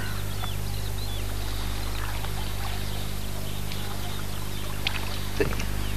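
Water sloshing around a man's waders as he wades through shallow water, over a steady low hum, with two small ticks near the end.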